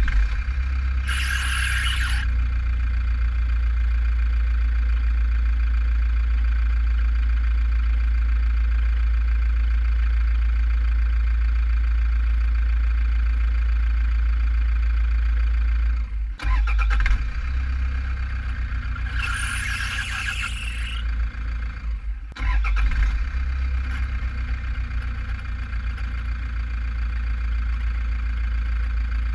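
Toyota 1KD-FTV four-cylinder turbo-diesel running, with a high drive-belt squeal breaking in twice for about a second each, once near the start and again about two-thirds through. The squeal comes on and off even with a new belt and pulleys, which the owner takes for a weak drive-belt tensioner spring letting the belt slip.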